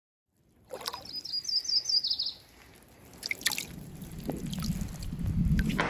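A songbird sings a short trill of quick descending notes about a second in, over a faint trickle of water. A few clicks follow, then a low rumble builds toward the end as a landing net moves in the water.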